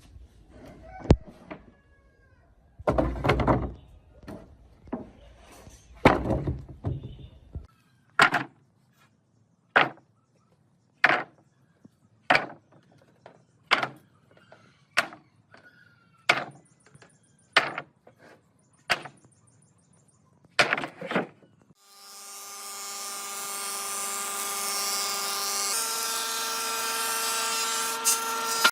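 Woodworking sounds: a string of sharp knocks on wood, uneven at first, then steady at about one every second and a quarter. About 22 seconds in, an electric power tool starts and runs with a steady whine that shifts pitch a few seconds later.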